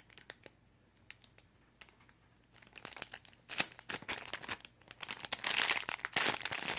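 Plastic packaging bag crinkling as the soft squishy inside it is squeezed and handled: a few scattered crackles at first, then dense, louder crinkling from about halfway.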